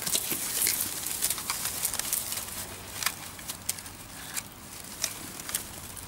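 Dry reed stems rustling and crackling close to the microphone as they are pushed aside, a rapid, irregular run of small clicks and snaps.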